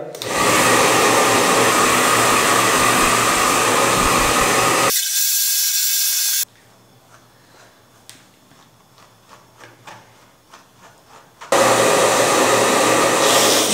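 Handheld electric hair dryer blowing on a wet dog's coat, a steady loud rushing with a low hum. About five seconds in the sound thins out and then cuts off, leaving a quiet stretch with faint ticks, and the dryer comes back on loud near the end.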